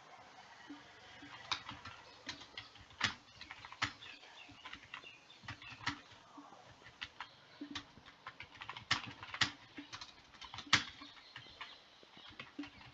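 Typing on a computer keyboard: irregular key clicks at an uneven pace, a few of them noticeably louder strikes.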